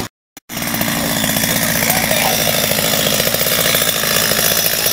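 Chainsaw engine running loudly and steadily after a brief dropout right at the start.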